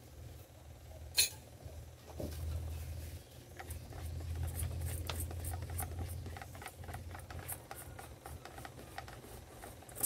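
Hand wiping the inside of a round glass terrarium bowl: soft rubbing and scraping against the glass with many small ticks, over a low rumble of handling that swells in the middle. A sharp click about a second in.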